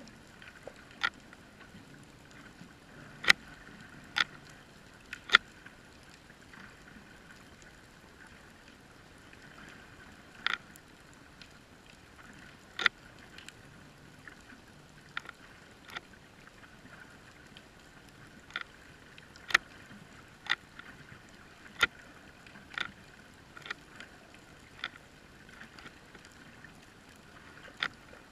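Underwater sound heard through a GoPro's waterproof housing on the sea floor: a steady faint hiss broken by sharp clicks at irregular intervals, roughly one a second, some much louder than the rest.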